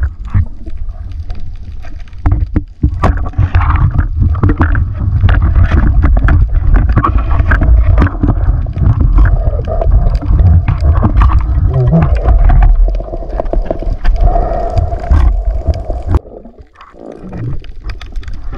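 Underwater audio: a loud, muffled low rumble of moving water with many sharp clicks and gurgles. A steady hum sits in it from about twelve to sixteen seconds in, and the sound drops away briefly near the end.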